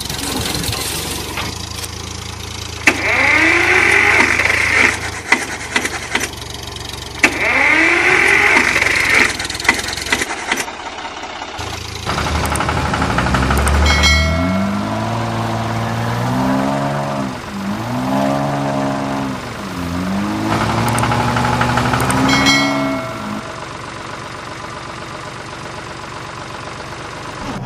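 Tractor engine sound effect: running, with rising revs about three and seven seconds in, then revving up and down several times in a row before settling to a steadier, quieter run near the end.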